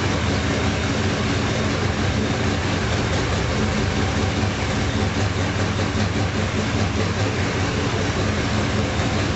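Radial aircraft engine running at a steady speed, a dense, even mechanical drone with a steady low hum.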